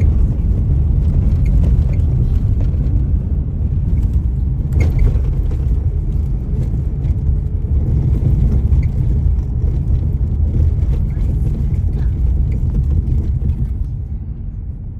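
Steady low road and engine rumble inside a moving car's cabin, easing off slightly near the end.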